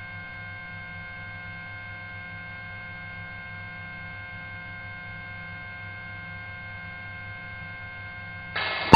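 Steady electrical hum with a low drone and several faint fixed tones on the police helicopter's radio/intercom audio between transmissions. It rises slightly near the end.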